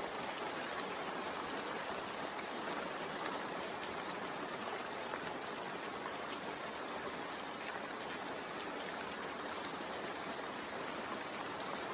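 Steady rain sound, an even hiss with no breaks.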